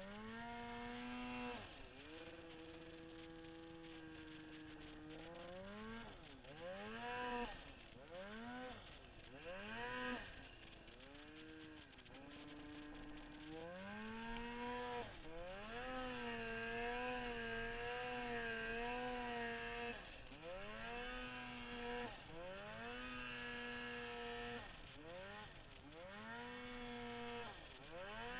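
Turbocharged Polaris Dragon 800 two-stroke snowmobile engine revving up and dropping off again and again, about ten times, as it pulls through deep powder, with one longer stretch held high near the middle.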